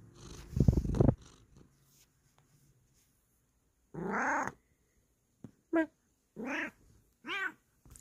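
Bengal cat meowing close to the microphone: four meows about a second apart, starting about four seconds in, one of them short and chirp-like. Shortly before, about half a second in, a loud low rumble as the cat rubs against the phone.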